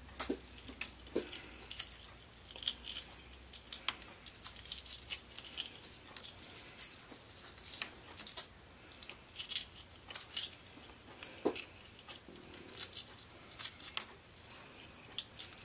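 Hard-boiled egg being peeled by hand: the cracked shell crackles and pieces of it drop onto a plastic cutting board, making a string of faint, irregular clicks.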